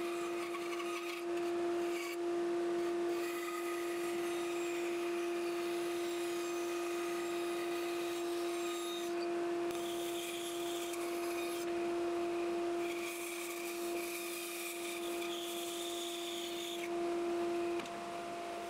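Bandsaw with a 6 mm, 4 TPI blade running with a steady hum while cutting tight curves in hardwood mallet parts: a pale handle blank, then a red gum mallet head. The rasping cutting noise comes and goes as the wood is fed through the blade.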